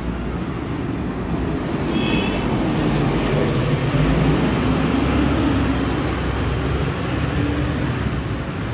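Street traffic: cars and motor scooters driving past, with engine noise that swells about two seconds in as a scooter passes close.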